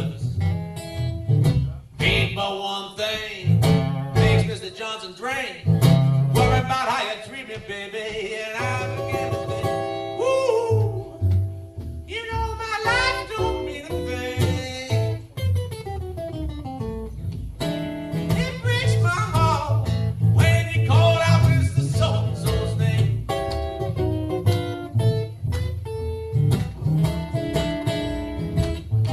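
Live acoustic Delta blues: an Eastman E10OM acoustic guitar picked and strummed, with a voice singing over it.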